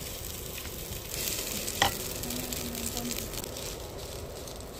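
Food sizzling on a grill: a steady hiss with fine crackle, swelling louder a little over a second in, and a single sharp tap about two seconds in.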